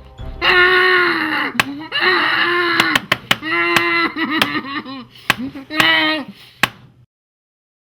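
A person yelling in long, loud cries while sharp slaps land over and over, about ten in all. It all cuts off abruptly about seven seconds in.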